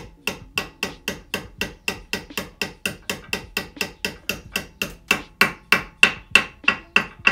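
Hammer tapping a Brembo brake caliper's steel pad retaining pin in from the back, about four light metallic taps a second, each with a short ring. About five seconds in the taps get louder, the sign that the pin is all the way in and sitting flat with the caliper.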